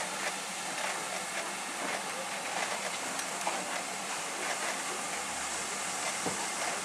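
Steam locomotives standing and creeping at a station: a steady hiss of escaping steam with no exhaust beat.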